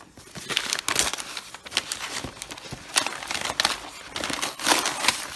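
Brown kraft packing paper crinkling and rustling as a cardboard box is pulled free of it and handled, in irregular crackles with a few louder crinkles.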